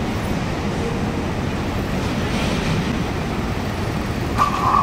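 Steady rumble of heavy road traffic, with a small motorcycle riding up close near the end. A brief higher-pitched tone sounds just before the end.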